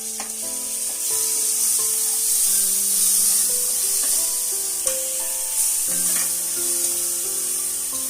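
Ground masala paste sizzling in hot oil in a kadhai as it is fried and stirred with a spatula, with a few sharp clicks of the spatula against the pan. Background instrumental music plays under it.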